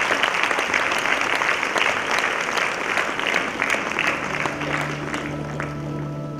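Audience applauding, a dense patter of many hands clapping that begins to fade near the end.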